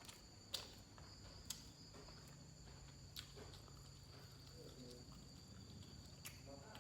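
Faint, steady high-pitched chirring of crickets with a low hum beneath, broken by four sharp clicks of eating, the loudest about half a second in.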